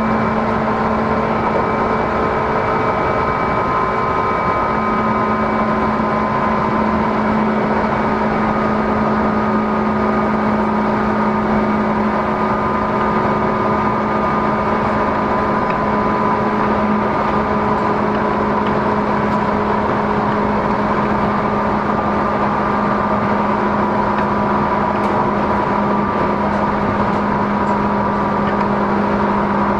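Tobu 10030 series electric train running between stations, recorded inside the passenger car: a steady rumble of wheels on rail with several steady whining tones from the traction equipment, holding an even pitch throughout.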